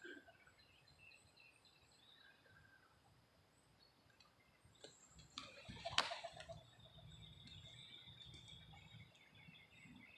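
Faint outdoor birds chirping in short scattered calls, with one sharp click about six seconds in and a soft low rumble after it.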